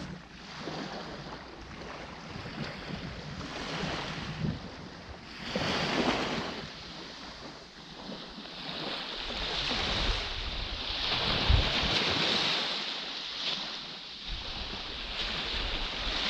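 Small waves breaking and washing up a sandy shore, with wind buffeting the microphone. The surf swells about six seconds in and again for a few seconds past the middle.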